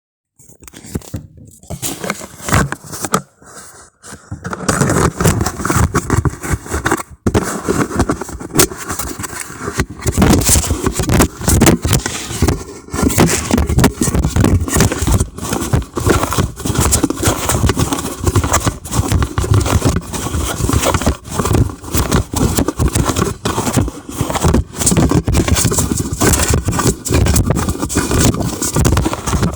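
Plastic-drum washing machine running, heard from a camera inside the drum: it starts a few seconds in, then a loud, continuous churning with rapid knocks and rattles.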